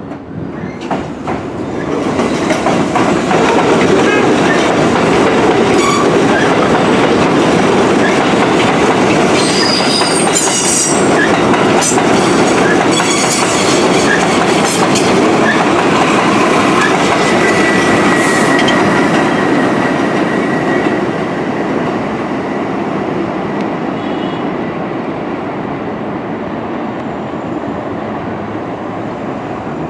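Bombardier R62A subway train pulling out of the station and running past on elevated track: wheels clattering over the rail joints, with high-pitched wheel squeals. The noise swells about two seconds in and eases off after about twenty seconds.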